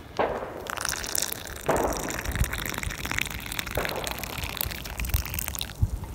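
Water gushing in three short spells, with small clicks and rustles of handling between them.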